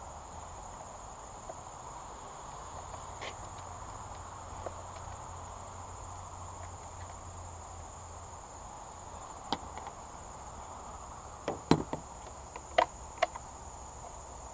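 Crickets trilling steadily, with a few sharp clicks and knocks near the end.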